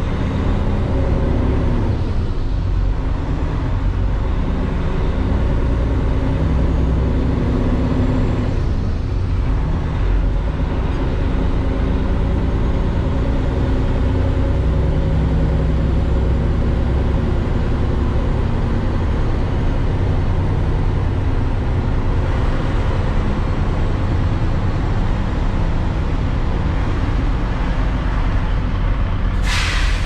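Grain semi truck's diesel engine running under way, its pitch rising and falling now and then. A short hiss of air near the end.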